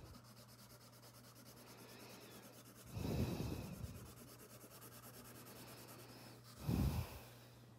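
An orange coloured pencil shades paper with a faint, steady scratching. Two short breaths out through the nose come about three seconds in and again near the end; they are the loudest sounds.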